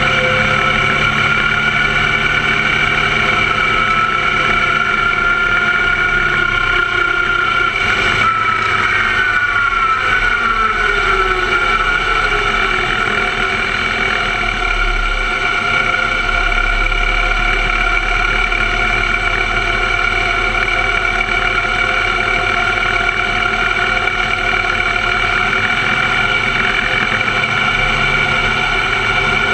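Open-wheel formula race car engine running at steady revs, heard onboard from the cockpit as the car is driven on track. About eight seconds in the engine note falls for a few seconds, then holds steady again.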